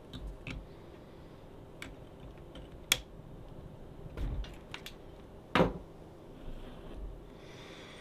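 Hand saddle stitching of a thick leather sheath: scattered light clicks and taps of steel pliers on the needles, with a sharp click about three seconds in and a louder brief rasp of thread drawn through the leather a little past halfway. The stack is three layers of 4 mm leather with a welt, so the needles are pulled through with pliers.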